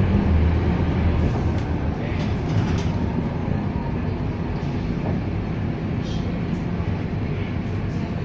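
Scania K230UB city bus heard from inside the cabin: its five-cylinder diesel engine runs with a low hum that eases off about a second and a half in, then drones steadily under faint interior rattles.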